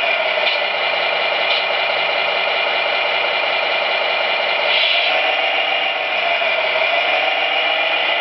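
RC truck sound module playing a simulated MAN TGA straight-six diesel engine through a small speaker, running steadily. Its pitch dips and comes back up about five to seven seconds in.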